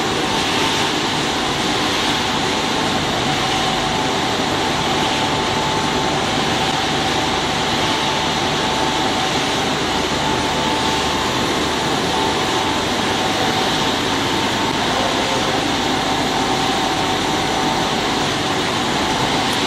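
Dry dog food production line machinery running steadily. It makes a continuous mechanical noise with a steady whine-like tone running through it.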